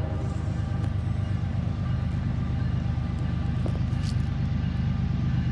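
Diesel locomotives of an approaching freight train rumbling steadily.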